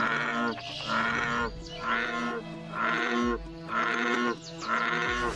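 American bullfrog calling: a series of about six loud, bull-like croaks, roughly one a second, each about half a second long.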